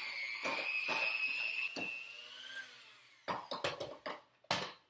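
Electric hand mixer beating cookie batter, its motor whine rising slightly in pitch, then dying away about three seconds in, followed by a few sharp knocks.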